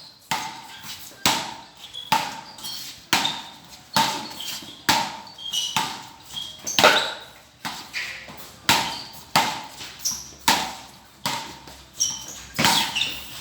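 Road tennis rally: a tennis ball struck back and forth with wooden paddles and bouncing on the road, a sharp knock about every second in an even rhythm.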